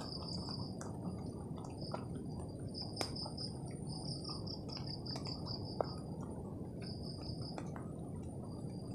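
An insect chirping in short trains of rapid high pulses, starting and stopping every second or so, over a steady low outdoor background hiss with a few faint clicks.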